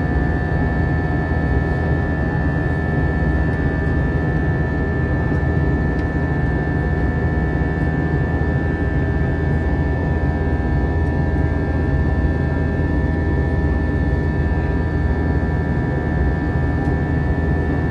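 Airbus A321-200 jet engines and airflow heard from inside the passenger cabin: a steady, loud low rumble with a few constant whining tones above it, no change in power.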